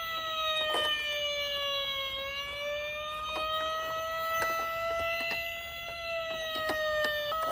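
Electronic siren of a toy emergency-vehicle minicar wailing. A single tone slides slowly and shallowly down, then back up, with a few light clicks over it.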